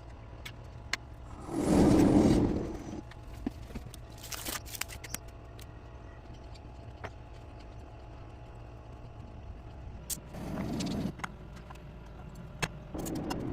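Handling noises while food is prepared: a loud scraping rustle about two seconds in, shorter ones near the end, and scattered sharp clicks over a low steady hum.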